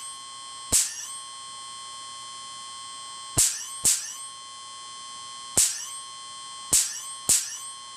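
Homemade 12,000 V Cockcroft-Walton generator sparking across a gap to a bolt electrode: six sharp snaps at irregular intervals, two close pairs among them. Under the snaps runs a steady high-pitched whine that breaks off briefly at each spark.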